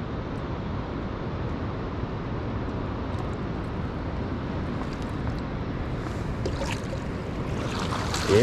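Steady rushing background noise, then near the end a black drum is lifted out of the water in a landing net, with water splashing and pouring from the mesh.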